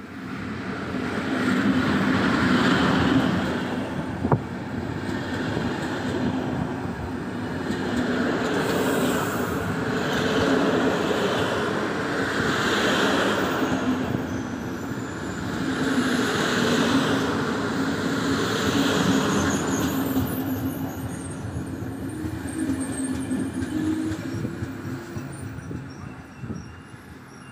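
Intercity passenger train hauled by an EP07 electric locomotive rolling into the station. There is a steady noise of wheels on the rails with a low hum. A higher squeal or clatter comes and goes every two to three seconds. The sound fades near the end as the train slows or passes.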